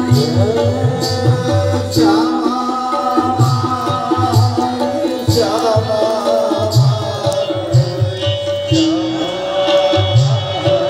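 Indian devotional music played over a public-address loudspeaker system: a singer with tabla-style drumming, held sustained notes and regular sharp percussive strokes.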